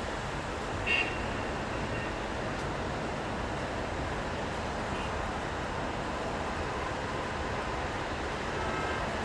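Steady city street noise of traffic in the rain, an even wash of rushing sound, with a brief high squeak about a second in.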